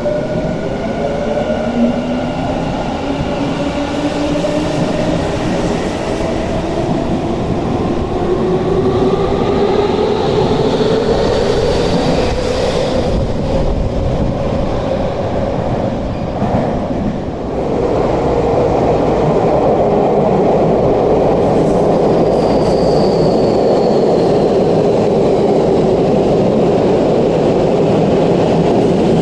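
Hitachi IGBT VVVF inverter and traction motors of a Yokohama Minatomirai Y500 series train whining in several rising tones as it accelerates out of the station. After a cut, a Tokyu 5050 series train with Hitachi IGBT inverters runs along the platform with steady motor and wheel noise and a brief falling whine.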